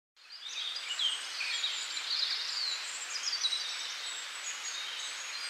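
Small birds chirping and trilling over a steady outdoor hiss, fading in over the first half second.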